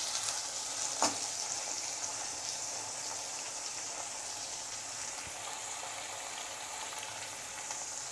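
Sliced onions and green chillies sizzling in hot oil in a stainless-steel kadai, a steady hiss as they sauté after salting. A single light tap about a second in.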